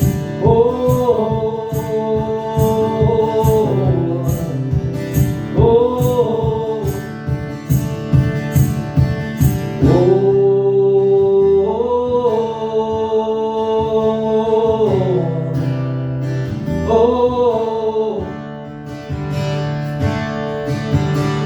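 Acoustic guitar strummed steadily under a man's voice holding long wordless notes, each about two to three seconds, sliding up into the note and falling away at the end.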